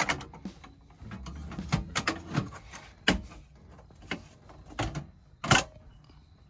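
Steel military ammo can's lid being handled and shut: a series of sharp metal clanks and clicks, the loudest about five and a half seconds in.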